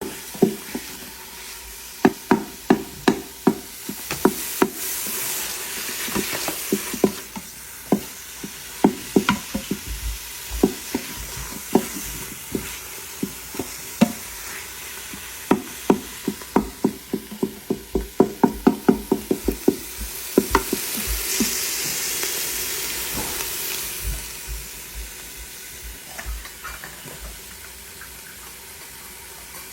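A utensil knocking and scraping against a cooking pan while stirring, over food sizzling. The knocks come irregularly, with a fast run of them about two-thirds through, and the sizzling hiss grows louder for a few seconds just after.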